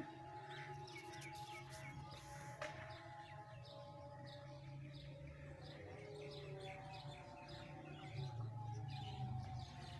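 Small birds chirping, a rapid series of short high chirps repeated throughout, over a steady low hum.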